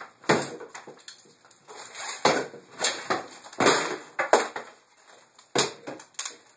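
Wooden cabinet framing being struck with a bar and broken apart: about six loud whacks with cracking and splintering wood between them.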